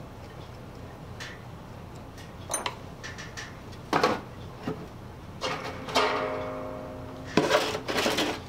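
Steel tools and lathe chuck parts clinking and knocking on a wooden workbench, a few scattered taps. About six seconds in comes one clink that rings on for over a second. Near the end there is a louder clatter as metal cans are moved about.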